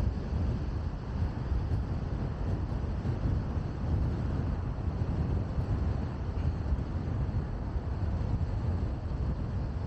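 A car driving along a city road, heard as a steady, deep rumble of road and vehicle noise with no distinct events.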